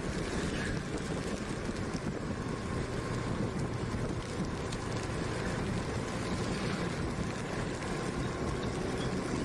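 Small motorbike running steadily at road speed on a wet road, with wind rushing over the microphone.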